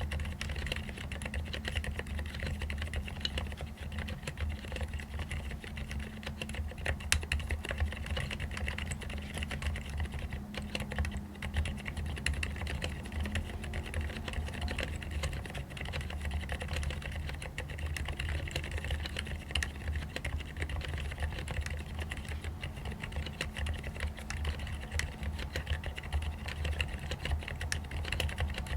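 Continuous fast typing on a mechanical keyboard with fully lubricated Cherry MX Silent Red switches: muted keystrokes in which mostly fingertips striking the keycaps are heard, over a steady low hum.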